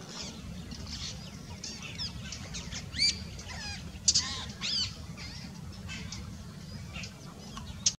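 Wild birds calling in a wetland chorus: many short high notes and a few rising calls, the loudest about three and four seconds in, over a steady low background rumble.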